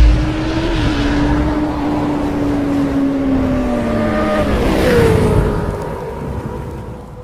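Racing-engine sound effect: a loud rush at the start, then a steady engine note that slides down in pitch about four to five seconds in, fading toward the end.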